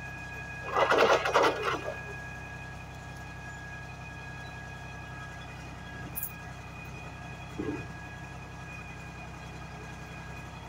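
US Jetting 4018 sewer jetter (4000 psi at 18 gpm) running steadily with a constant hum. About a second in comes a loud rush of noise lasting about a second.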